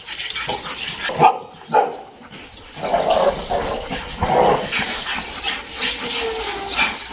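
Dog barking: two short sharp barks about a second in, then a burst of barking a couple of seconds later, and a drawn-out, slightly falling note near the end.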